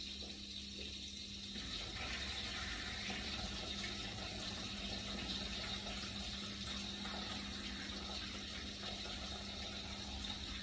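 Water splashing into a kitchen sink as the cooking water is drained off a pot of boiled rice, a steady rush that swells about two seconds in and keeps on.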